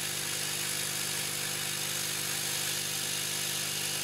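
Hot air rework gun blowing steadily: a constant rushing hiss of air with a low, even hum from its fan, as it heats a surface-mount chip's solder joints to desolder it.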